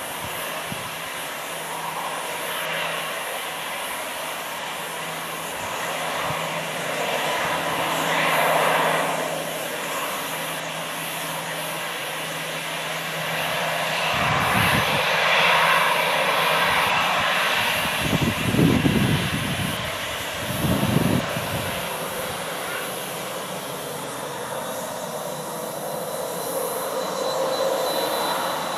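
Airbus A321-211's CFM56-5B jet engines at taxi power, a steady rushing hum as the airliner taxis onto the runway. Several brief low rumbles break in, the loudest about 18 seconds in, and a faint whine rising slightly in pitch comes in near the end.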